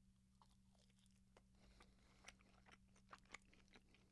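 Faint chewing of a chicken wing close to the microphone: scattered small crunches and mouth clicks.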